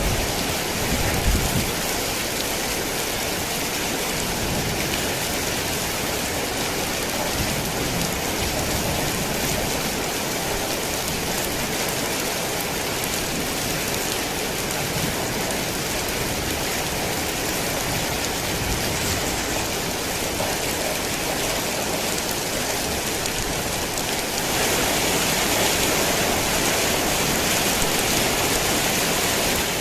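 Heavy rain falling steadily, an even hiss of drops on surfaces. A brief low rumble comes about a second in, and the rain grows louder and brighter about 24 seconds in.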